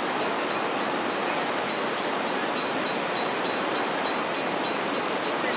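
Fast-moving floodwater rushing in a steady, loud wash of noise. Faint short high pings repeat about two to three times a second over it.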